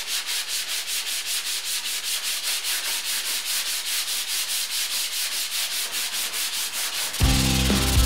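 Hand sanding block with 80-grit paper scraping back and forth over dried body filler on a car body panel, in quick, even strokes. Music with a heavy bass comes in loudly about seven seconds in.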